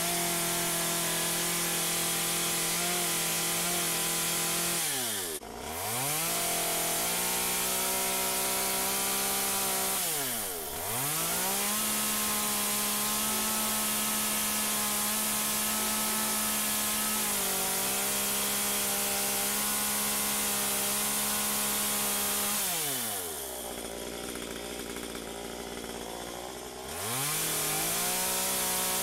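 Stihl MS 193 C two-stroke top-handle chainsaw running at high revs, cutting wood. The throttle is let off briefly about five and ten seconds in, and for about four seconds near the end, where the engine drops to a low idle before revving back up.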